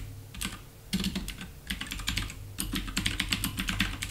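Computer keyboard typing: quick, irregular keystrokes in short runs with brief pauses between them.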